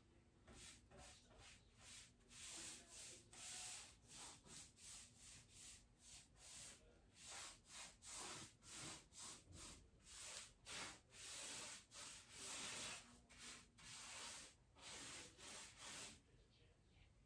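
Paintbrush swishing back and forth over painted wooden furniture, about two strokes a second, as a second coat of paint goes on; the strokes stop near the end.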